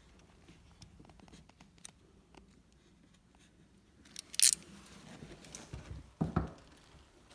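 Small hand tools and fittings being handled against the uPVC window bead: light scattered clicks, then one brief sharp scrape about four and a half seconds in and a duller knock near the end.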